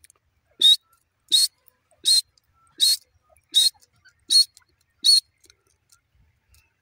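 Grey francolin calling: seven short, high-pitched calls in an even series, about one every three-quarters of a second, stopping about five seconds in.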